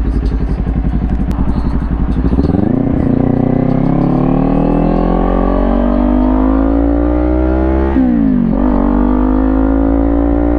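Kawasaki Ninja 400 parallel-twin engine lugging low, then pulling away and accelerating, its pitch rising steadily; about eight seconds in it drops sharply for an upshift and climbs again.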